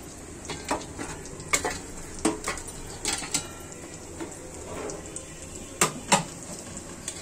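A metal utensil clinks and scrapes irregularly against a pan as fried chicken strips are lifted out of the oil, with a steady sizzle of frying underneath. The two sharpest clinks come near the end.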